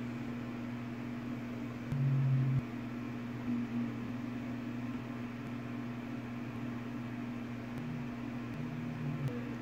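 A steady low drone over faint hiss, with a brief louder low tone about two seconds in and another near the end.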